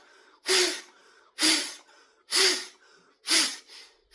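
Forceful exhalations through one nostril with the other held shut, short sharp blasts about one a second, four in a row and a fifth starting at the end. They are the drying stroke after jal neti, blowing the leftover salt water out of the nasal passage.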